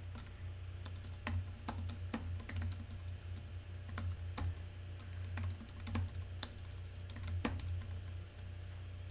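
Typing on a computer keyboard: quick, irregular key clicks, several a second, as words are entered into form fields. A steady low hum runs underneath.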